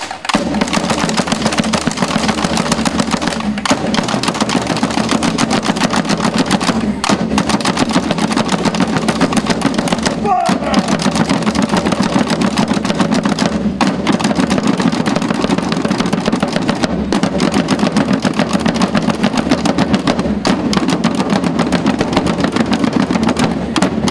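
A drum band of snare drums and bass drums playing together, a fast, loud, continuous roll of strokes that breaks off for a moment about every three and a half seconds as each phrase ends.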